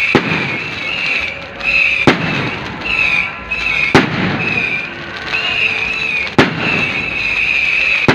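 Aerial fireworks shells bursting overhead: four sharp bangs about two seconds apart over a continuous rumble of the display, with a wavering high tone running underneath.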